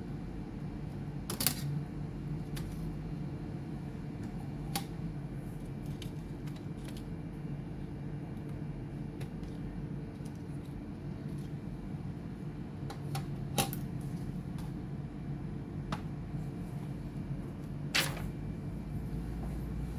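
Scattered sharp clicks and taps of small tools against plastic and metal laptop parts during disassembly work, about seven in twenty seconds, the loudest three a little after the start, past the middle and near the end, over a steady low hum.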